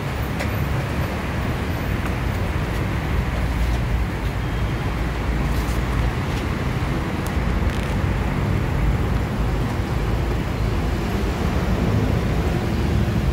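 Steady low rumble and hiss of background noise, with a few faint sharp clicks as the plastic clips of a door-panel trim strip are pried loose.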